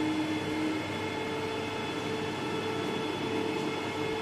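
Metal lathe running, its spinning chuck giving a steady hum with several steady tones; one lower tone drops out about a second in.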